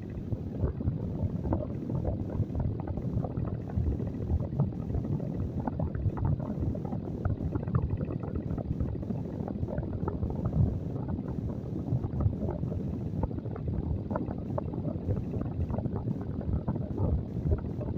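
Electric fan blowing air straight at the microphone, a steady low rumble with a rapid, uneven flutter of wind buffeting.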